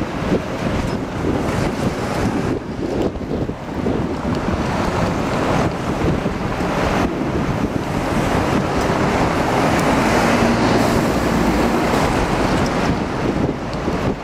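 Wind buffeting the camera microphone on the upper deck of a moving open-top bus, a steady rushing rumble that swells somewhat about halfway through, with city traffic underneath.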